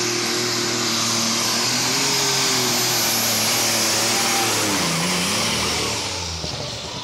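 Super Stock pulling tractor's turbocharged diesel engine running flat out under load, loud, with a high whistle over the engine note. About five seconds in the engine note sags and comes back up, then the sound falls away near the end.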